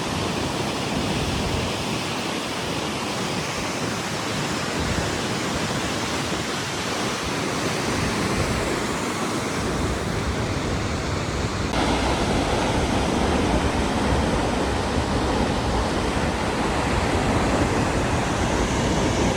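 Steady loud rush of falling water, an even hiss with no breaks. The sound shifts abruptly about twelve seconds in, then carries on just as steadily.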